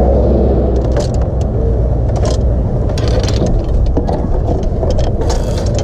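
Clicks and knocks of fishing rods and a folded stroller being shifted and fitted into an SUV's cargo area, over a steady low rumble.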